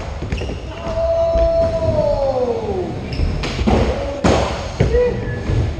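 Skateboard sounds: wheels rumbling on wooden ramps, a drawn-out falling tone in the first half, then two loud thuds of boards striking the ramp about three and a half and four seconds in.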